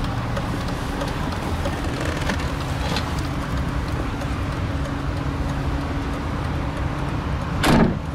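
2005 BMW X5 E53's engine idling steadily, a low, even hum. A short, loud thump comes near the end.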